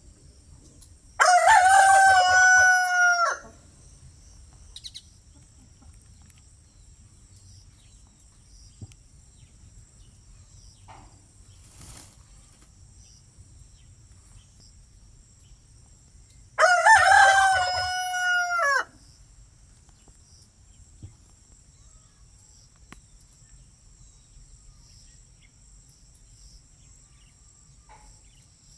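Rooster crowing twice, about fifteen seconds apart; each crow is a loud call of about two seconds that drops in pitch at the end. A faint steady high-pitched hum runs underneath.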